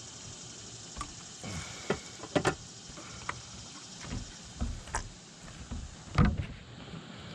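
Irregular clicks, knocks and low thumps of handling on a kayak, with the loudest thump about six seconds in, over a steady high hiss.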